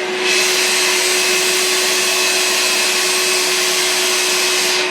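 Vacuum motor of a vacuum-forming setup running steadily with a constant whine, sucking a heated plastic sheet down over a helmet mould. A brighter rush of air starts just after the beginning and cuts off shortly before the end.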